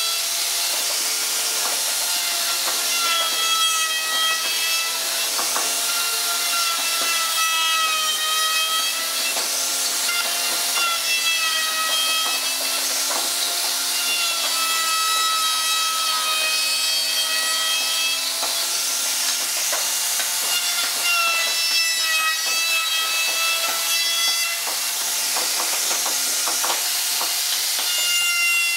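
Maktec MT362 electric plunge router running and cutting wood: a high, steady whine that sags in pitch and recovers several times as the bit takes the load, over the hiss of cutting.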